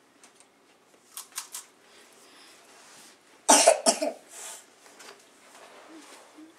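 A person coughing on dry saltine crackers eaten without water. There are a few short sharp bursts about a second in, then a loud cough of two or three quick bursts about three and a half seconds in.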